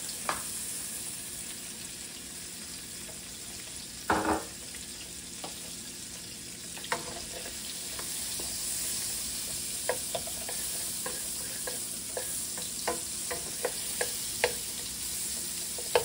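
Butter and olive oil sizzling in a nonstick frying pan as the butter melts, the sizzle growing a little louder about halfway through. A wooden spatula stirs and taps against the pan, with one louder knock about four seconds in and many light taps from about seven seconds on.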